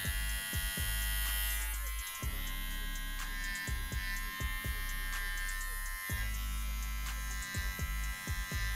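Andis SlimLine 2 cordless trimmer running with a steady high buzz as it edges a hairline. Background music with deep, repeating bass plays under it.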